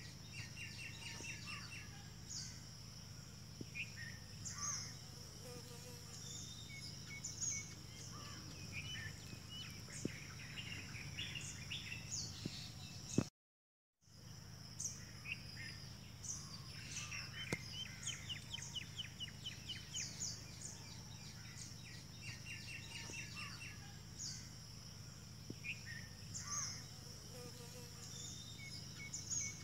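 Faint outdoor ambience: many small birds chirping and trilling over a steady high insect buzz and a low hum, cut by a half-second gap of silence about halfway through.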